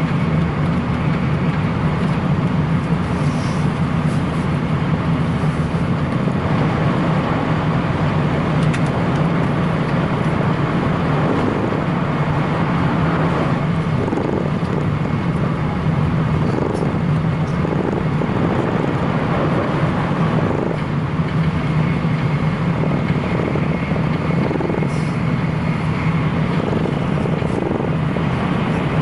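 Steady running noise of a Shinkansen bullet train at speed, heard from inside the passenger car: an even low rumble with a faint high whine.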